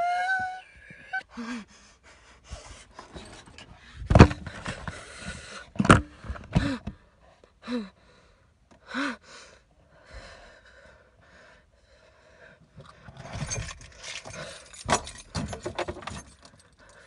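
A woman sobbing and panting in ragged breaths with short whimpers, a high wail at the start. There are sharp knocks about four and six seconds in, and keys jangling near the end.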